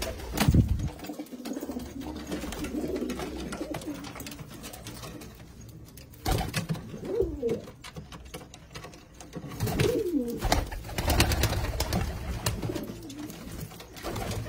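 Domestic pigeons cooing: low, rolling coos that swoop up and down in pitch, clearest about seven and ten seconds in, with scattered clicks and rustling between them.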